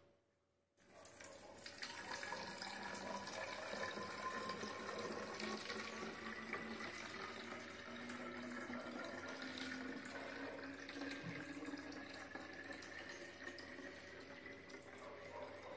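Water poured in a steady stream from a plastic bottle into a narrow-necked bottle, starting about a second in; the pitch of the filling rises slowly as the bottle fills up.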